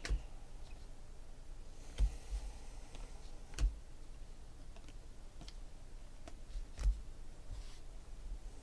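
Panini Prizm basketball trading cards flipped through and sorted by hand: faint, irregular clicks and taps of card stock, with a few sharper taps about 2, 3.5 and 7 seconds in.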